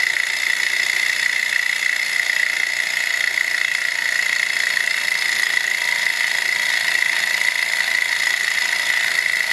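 Small gamma-type walking-beam Stirling engine running fast while driving its small generator, a steady high-pitched mechanical buzz that does not change.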